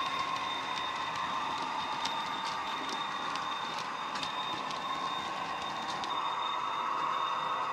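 Model freight wagons rolling past on the track with irregular sharp clicks from the wheels over the rail joints, over the steady diesel engine sound that the Bachmann Class 43's Loksound 5 sound decoder plays through its small speaker.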